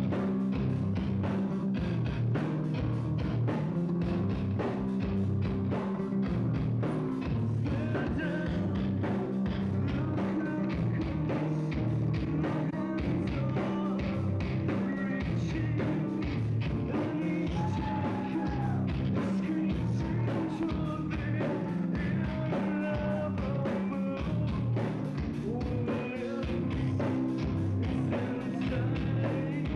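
Rock band playing live: drums keep a busy, steady beat under sustained bass and guitar, with a singer's voice over the top.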